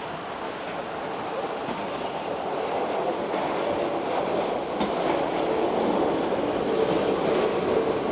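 Keihan 2600-series electric train pulling into the platform, its wheels and running gear rumbling on the rails and growing steadily louder as it comes in. A faint steady tone joins in over the last couple of seconds.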